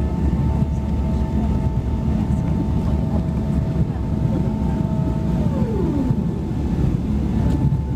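Boeing 777-300ER cabin noise while taxiing: a steady low rumble from the GE90 engines, with a steady whine over it. About five and a half seconds in, one whine tone slides down in pitch.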